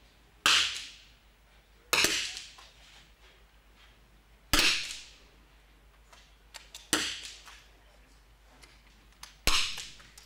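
Five smallbore .22 rimfire target rifle shots, each a sharp crack with a short echoing tail, fired at uneven intervals by several shooters on the firing line.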